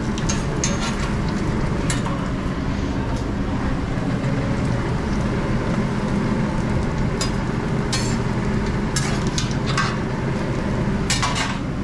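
Food frying on a restaurant griddle over a steady low drone, with scattered clicks and scrapes of spatulas and utensils.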